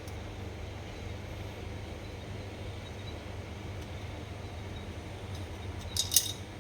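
Steady low hum, then a quick cluster of sharp clicks about six seconds in: small parts or a tool clicking against each other.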